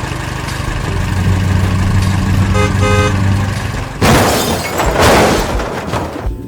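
Cartoon sound effects: a truck engine running with a steady low hum, two short horn beeps about halfway through, then two loud crashing noises about a second apart.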